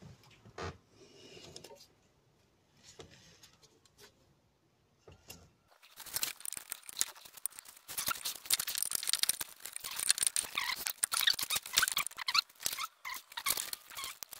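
A thin plastic bag being crumpled and handled close to the microphone, loud irregular crinkling from about six seconds in, after a few faint taps.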